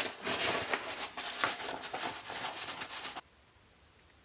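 Waxed canvas pouch being handled and turned the right way out, a dense scratchy rustling of stiff fabric that cuts off abruptly about three seconds in, leaving near silence.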